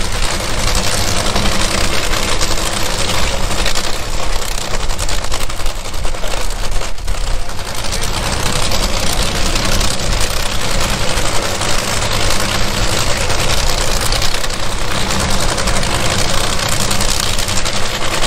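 Supercharged nitromethane-burning Hemi V8 of a Top Fuel dragster or Funny Car idling, a loud, steady, rapid crackling rattle over a low engine drone.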